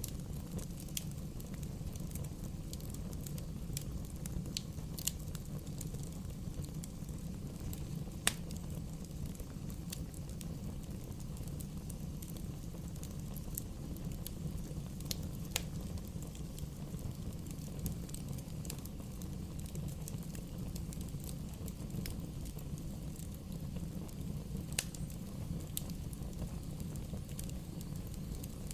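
Wood fire burning: a steady low rumble with scattered sharp crackles and pops, the loudest about eight seconds in.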